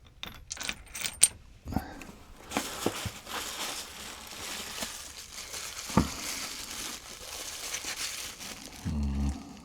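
Packing wrap crinkling as a stone piece is unwrapped by hand, after a few sharp clicks near the start, with one sharp knock about six seconds in.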